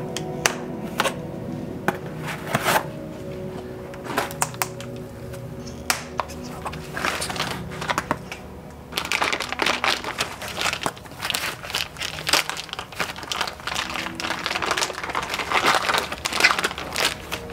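Foam packing sleeves and tape being pulled and torn off a bike, crinkling and crackling. It grows dense and busy about seven seconds in; before that come a few sharp snips as zip ties are cut with side cutters.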